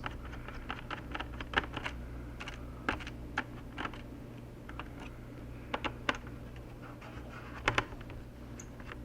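Irregular small clicks and taps of a screwdriver and screws being worked out of a laptop's plastic base (the palm-rest screws), over a steady low hum.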